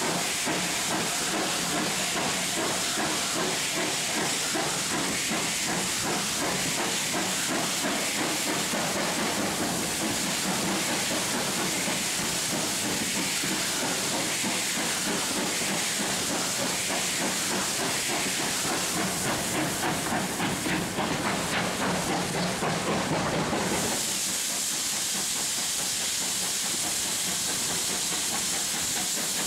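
GWR steam locomotive working hard, heard from an open carriage window behind it: fast exhaust beats over a steady hiss of steam. About 24 seconds in the beats stop as steam is shut off, leaving a steady hiss and rail noise as the train coasts.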